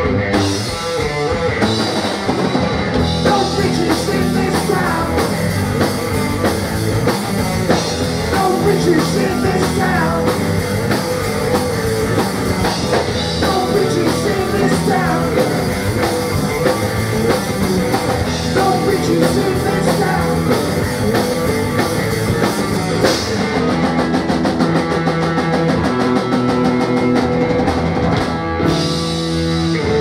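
Live rock band playing loud: distorted electric guitars and bass over a drum kit with crashing cymbals. The cymbals drop away near the end, leaving the guitars ringing.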